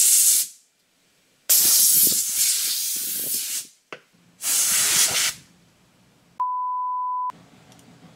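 Can of compressed-air duster spraying into a laptop keyboard in three hissing blasts, the middle one about two seconds long. Near the end a steady, even beep tone sounds for about a second.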